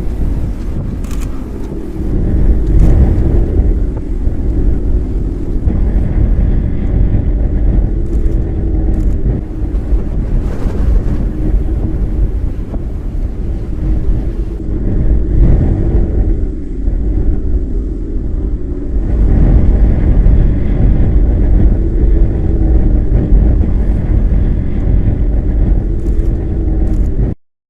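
Steady low rumble of a car driving. It cuts off abruptly near the end.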